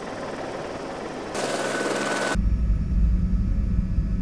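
Eurocopter AS355F1 twin-engine helicopter running, its sound changing abruptly about one and a half seconds in and again about a second later. After the second change a loud, low, rapid rotor chop is heard from inside the cockpit.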